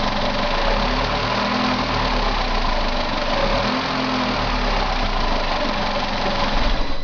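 Volkswagen Golf Mk6 engine idling warm, a steady running sound with a deep hum underneath.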